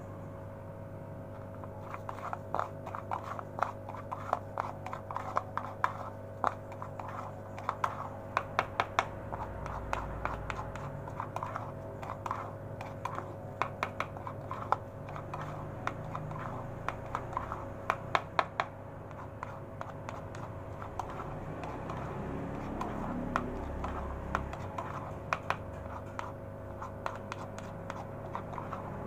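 A metal spoon stirring and scraping feed pellets in a plastic bowl: irregular clicks and scrapes in clusters. A steady low hum runs underneath.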